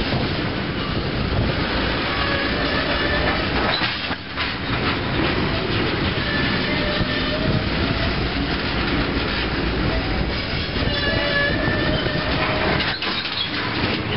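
Freight train of covered hoppers and tank cars rolling past at steady speed: a continuous rumble and rattle of steel wheels on rail, with faint squealing tones that come and go twice.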